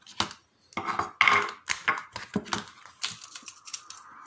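Quick small metallic clicks and clatter from a lock being taken apart with tools. A steady hum comes in about three seconds in.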